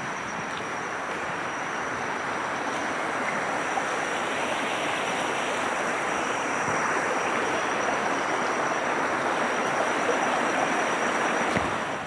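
Distant small waterfall: a steady hiss of falling water that grows gradually louder as it is approached.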